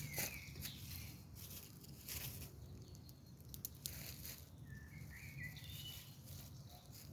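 Wood fire crackling with scattered sharp pops over a low, steady rumble, while a bird sings short chirping phrases at the start and again about five seconds in.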